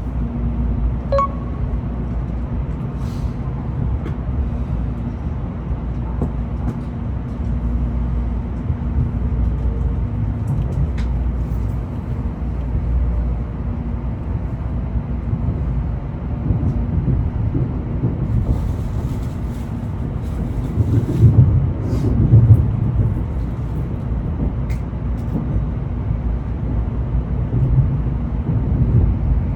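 Tokaido Shinkansen train running, a steady low rumble with a constant hum and light clicks, swelling louder about two-thirds of the way through.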